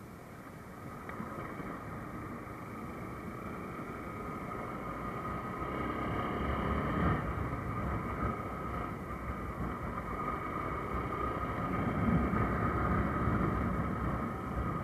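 Motorcycle in motion, its engine running under rumbling wind noise on the camera microphone; the sound grows steadily louder as the bike picks up speed along the road.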